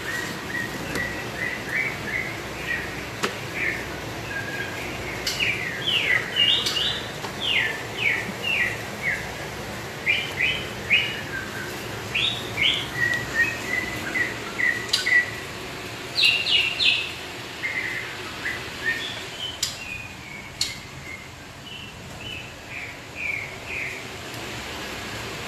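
Caged songbird chirping over and over: quick runs of short, high notes that sweep downward, with a few sharper, louder calls in between, over steady background noise.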